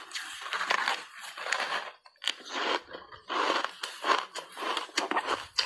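Refrozen block ice thickly coated in matcha powder being bitten and chewed: dense crunching with sharp cracks, a brief pause about two seconds in, then more crunching.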